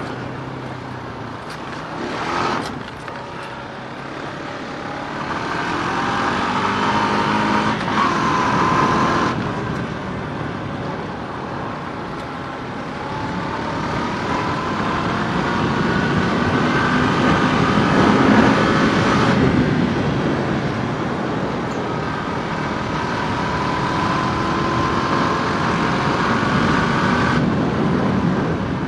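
Small vehicle engine running while being ridden, its whining pitch rising and falling with the throttle.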